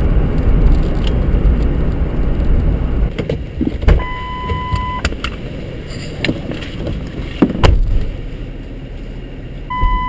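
Wind rumbling on the microphone, then the knocks and clicks of a car being got into, with a steady one-second electronic beep twice: once about four seconds in and again near the end.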